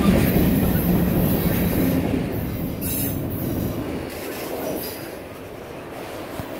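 Freight cars of a Norfolk Southern mixed freight train rolling past close by, steel wheels rumbling and rattling on the rails. The rumble is loudest at first and eases off about four seconds in.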